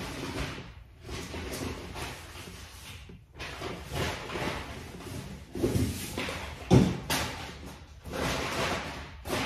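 Handling noise in bursts of rustling and scraping, with one louder knock about seven seconds in.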